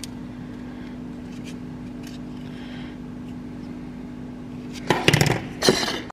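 Hard plastic clacking and rattling in two quick bursts about five seconds in, as a car dashboard switch panel and a USB socket housing are handled and knocked against a table, over a steady low hum.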